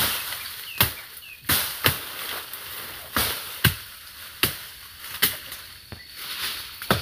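A hand tool chopping: about nine sharp strikes at an uneven pace of roughly one a second, some coming in quick pairs.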